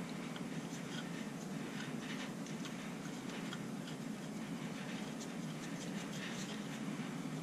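Faint, scattered light metallic clicks and ticks of steel cylinder studs being handled and screwed finger-tight into an engine case, over a steady low hum.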